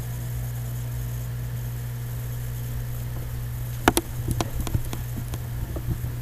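Steady low electrical hum with a faint hiss. About four seconds in comes a sharp click, followed by a scattering of lighter clicks and taps for about two seconds.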